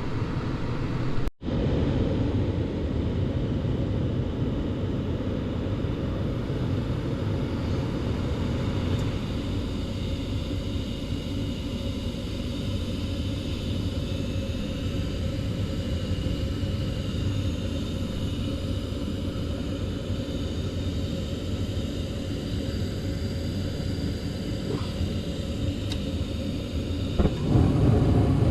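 Gas furnace running after being fired up: a steady low rumble of burners and motor, with the flame sensor now realigned into the flame so the burners stay lit. Near the end the sound grows louder and fuller.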